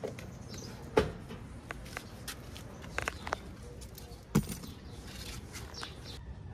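A few scattered sharp clicks and knocks over a low steady background noise, the loudest about a second in and again a little past four seconds in.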